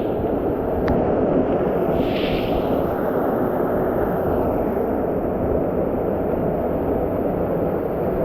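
Waterfall's rushing water heard as a steady, muffled low rumble with the high end cut away, and a faint click about a second in.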